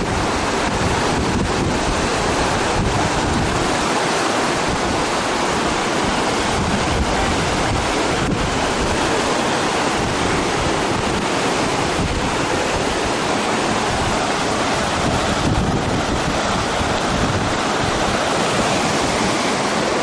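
Whitewater rapids rushing steadily in a slalom course channel, with wind buffeting the microphone.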